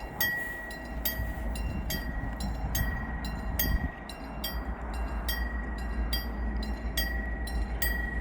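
Railroad level-crossing warning bell ringing steadily, about two and a half strikes a second, over a low rumble.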